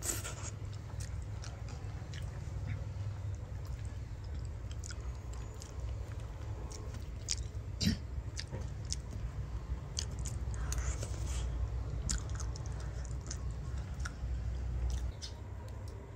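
A person biting and chewing grilled cassava, with scattered short crunches and clicks over a steady low rumble.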